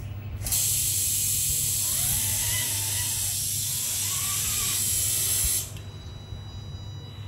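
Steering servo of a Traction Hobby Cragsman F150 RC crawler making a loud, harsh hissing buzz for about five seconds, starting about half a second in and cutting off suddenly. The owner hears this noise when steering to the left and takes it for a servo fault.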